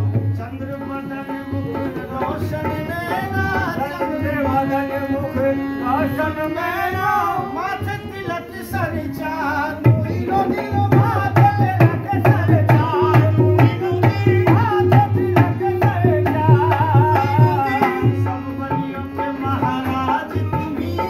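Live qawwali: a lead singer's ornamented, gliding vocals over sustained harmonium notes and hand-drum beats. The drumming is lighter at first and comes back in full about halfway through.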